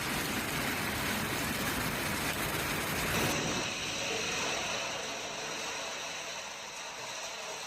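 Steady rushing noise of a hailstorm, changing abruptly about three seconds in.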